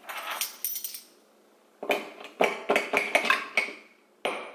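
A metal spoon stirring iced coffee in a cup, knocking against the ice cubes and the cup in a quick run of clinks, a few of them ringing briefly.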